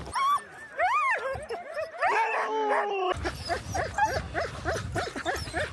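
A team of harnessed sled dogs whining and yipping at a halt, eager to run. One long drawn-out whine comes about two seconds in, then a quick run of short high yips, about three a second.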